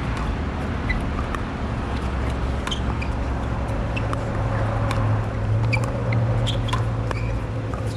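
Pickleball paddles hitting the hard plastic ball in a fast doubles rally: a string of sharp, irregular pops over a steady low rumble.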